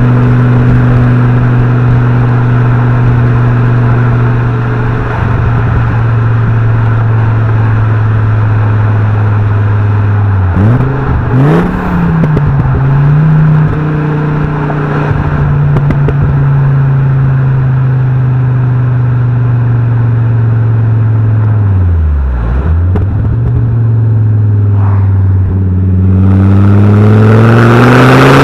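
Fiat Coupé 20V Turbo's five-cylinder turbo engine and exhaust while driving. It runs at steady revs, with a quick dip and recovery about a third of the way in and revs dropping low about three-quarters through, then climbing steadily under acceleration near the end.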